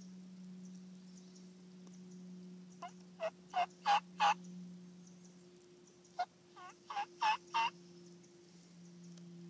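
Two series of wild turkey yelps, about five short notes each, the first series growing louder note by note, the second following about two seconds later. A faint steady low hum runs underneath.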